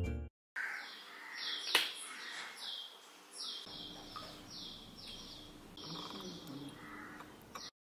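A songbird chirping over and over, faint short falling calls about two a second, with a single sharp click about two seconds in.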